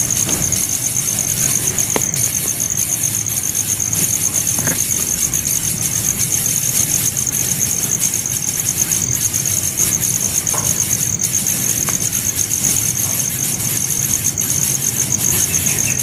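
Steady high-pitched insect chorus, unbroken throughout, over a low steady rumble.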